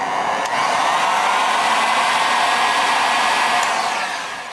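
Heat gun blowing hot air to shrink heat-shrink tubing on small wires: a steady rushing blow that dies away near the end.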